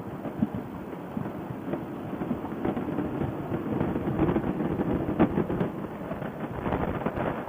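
Wind buffeting and road noise on a motorcyclist's helmet intercom microphone while riding, a rough crackling rush that grows louder for a few seconds in the middle and then eases.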